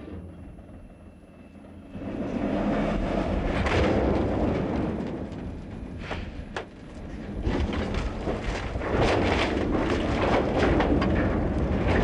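Loud vehicle rumble that swells sharply about two seconds in, with a couple of sharp clicks and a brief drop around the middle before it builds again.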